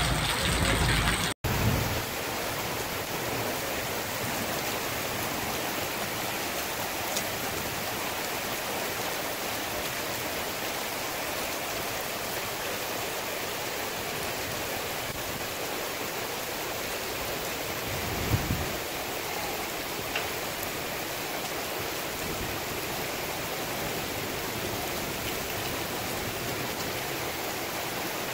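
Heavy monsoon rain falling steadily on a street and running water, heard as an even hiss. A single brief low thump comes about eighteen seconds in.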